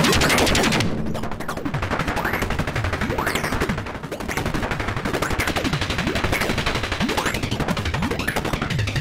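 Planetarium granular synth in UVI Falcon playing a dense crackling texture of rapid clicks laced with many swooping rising and falling pitch glides, run through its Anomalie section's rectifier effect. The top end drops away about a second in.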